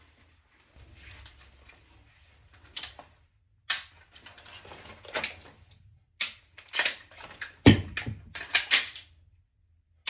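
Rifle and sling being handled: a series of sharp clicks and knocks from the adjustable stock and sling hardware, with soft rustling of the sling in between. The clicks start about three seconds in and come closer together toward the end, where the loudest knock falls.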